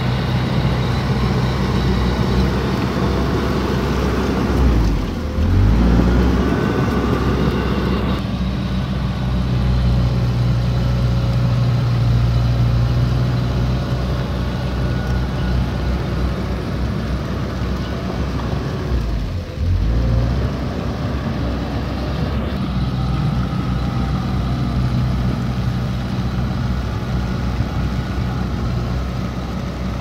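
Komatsu D31P bulldozer's diesel engine running steadily under load, its note shifting briefly about five seconds in and again near twenty seconds.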